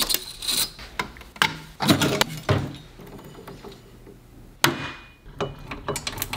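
Metal clinks, knocks and rattles from hand work on a go-kart's chassis and chain drive, coming in irregular bursts with a quieter stretch in the middle.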